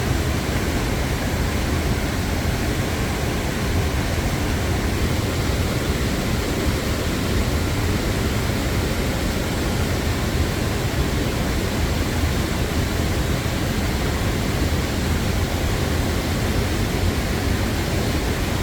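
Steady rush of running water from a river and waterfall, an even unbroken hiss.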